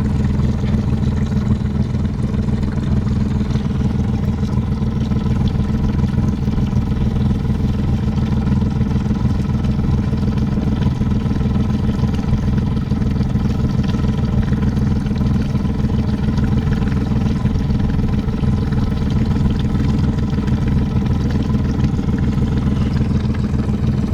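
Boat engine running steadily at low cruising speed, a constant drone with no change in pitch.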